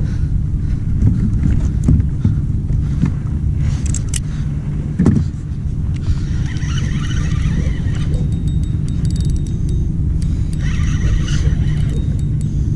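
Spinning reel cranked against a hooked fish, with clicks and two stretches of higher whirring, about six and eleven seconds in. A steady low rumble runs under it.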